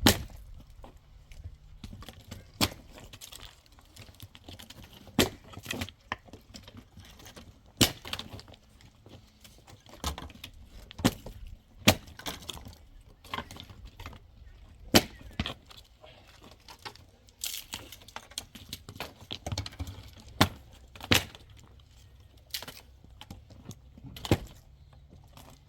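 Sharp knocks and clinks of hand tools striking building material, one every one to three seconds at an uneven pace.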